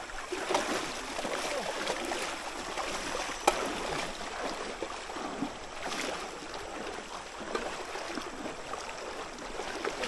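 River water flowing and splashing, with a single sharp knock about three and a half seconds in.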